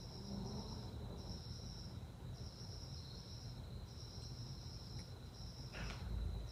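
High-pitched insect-like chirping in regular pulses, each under a second long with short gaps, over a thin steady high tone and low background rumble. A brief soft rustle comes near the end.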